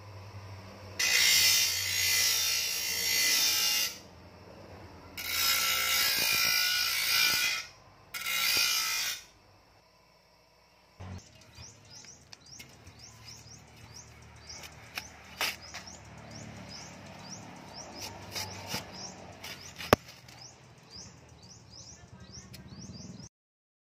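Bench grinder sharpening a steel shovel blade: three spells of harsh grinding as the blade is pressed to the spinning wheel, with the motor humming before them. Later, birds chirping over and over, with a few knocks and one sharp hit near the end.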